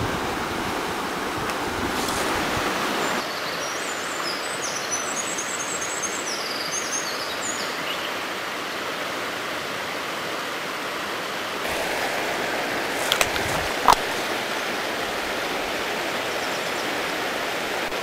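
Mountain stream water rushing steadily over rocks and gravel. A short high chirping trill comes about four seconds in, and a few sharp clicks about two-thirds of the way through.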